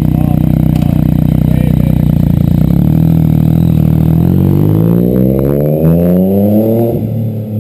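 Yamaha FZ-09's inline-three engine through an M4 exhaust with the dB killer removed, running loud and steady, then pulling away with the pitch climbing from about three seconds in. Near the end the pitch drops at a gear change and starts climbing again.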